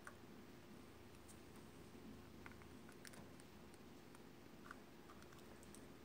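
Faint, irregular clicks and taps of a budgerigar's beak pecking and nibbling at the phone, a few in a few seconds, over near-silent room tone.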